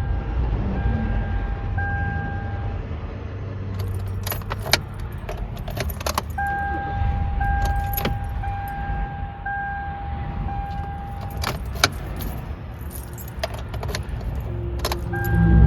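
Car keys jangling and clicking at the ignition while the dashboard warning chime beeps about once a second, pausing in the middle and starting again near the end, over a steady low rumble.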